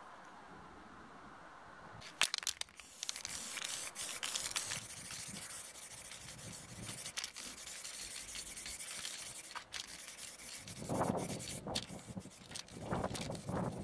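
Aerosol can of heat-resistant black spray paint hissing as it is sprayed, starting about two seconds in after a few sharp clicks. Some lower, irregular rustling bursts come in near the end.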